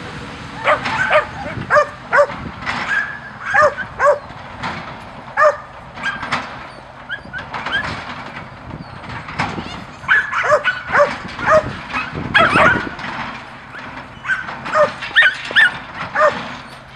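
A dog barking repeatedly in short, high yips, coming in quick irregular runs with brief gaps.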